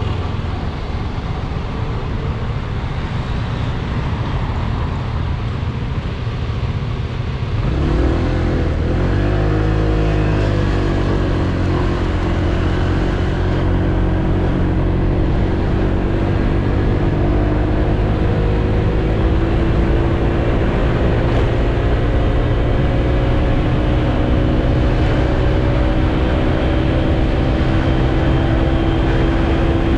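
Honda PCX 125 scooter's single-cylinder engine pulling the bike up to speed, under steady wind and road noise. About eight seconds in the engine note jumps up, then holds as a steady drone that climbs slowly in pitch as the speed builds.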